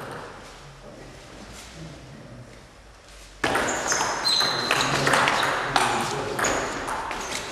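Table tennis rally: a celluloid ball clicking rapidly back and forth off rackets and table, starting sharply about a third of the way in, with a few short high squeaks among the hits.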